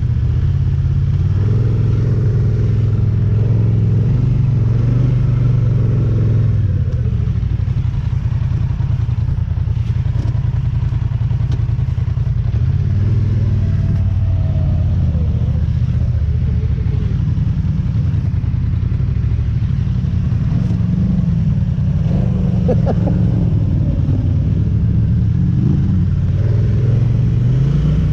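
ATV engine running as it is ridden, its pitch rising and falling with the throttle, with a few faint knocks from rough ground.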